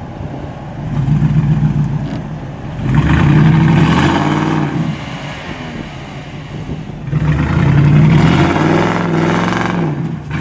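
Vehicle engine revving hard in three surges, its pitch climbing and dropping back each time; the last two surges are the loudest.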